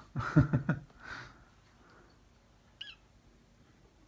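Kittens at play: a short, loud, low vocal sound with a bending pitch at the start, then quiet, with a brief faint high squeak from a kitten near three seconds in.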